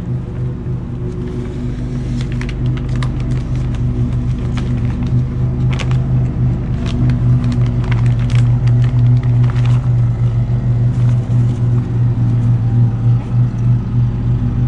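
A steady low mechanical hum runs throughout, with crinkling and rustling of a plastic bag as ground pork is handled and bagged.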